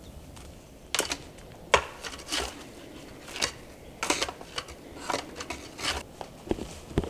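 Footsteps crunching through dry ground cover: a dozen or so short, irregular crunches, roughly one every half second to second.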